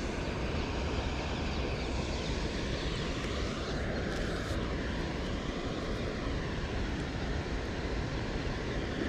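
Steady distant engine drone, with a faint tone that slowly shifts in pitch about two to five seconds in.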